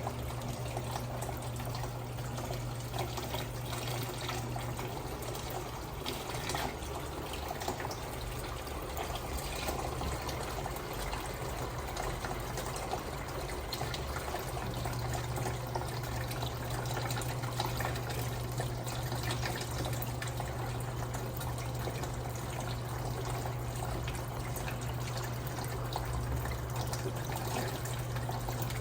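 Electrolux LTM16 washing machine with water running and trickling inside it over a steady low electric hum. The hum eases briefly about ten seconds in, then comes back.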